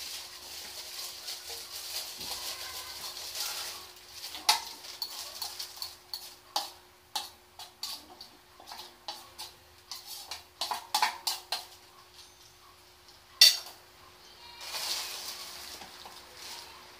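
Crinkling of a thin plastic bag worn over the hand like a glove, with scattered clicks and clinks of plates and cutlery and one louder clink about three-quarters of the way through. A faint steady hum sits underneath.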